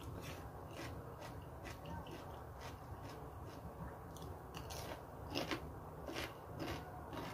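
A person chewing food close to the microphone, with many short crunching clicks; the loudest crunches come about five and a half to seven seconds in.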